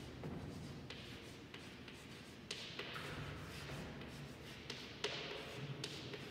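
Chalk writing on a blackboard: short scratchy strokes and sharp taps as the letters are formed, in irregular bursts.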